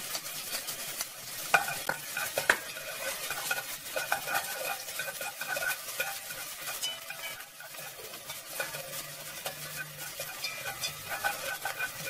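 Minced shallot and garlic sizzling in hot oil in a pot, stirred with cooking chopsticks that tick against the pot, with two sharp clicks about one and a half and two and a half seconds in.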